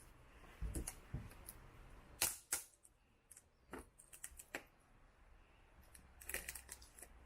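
Irregular light clicks and knocks of small objects being handled, a dozen or so sharp ticks spread unevenly, with a short cluster near the end.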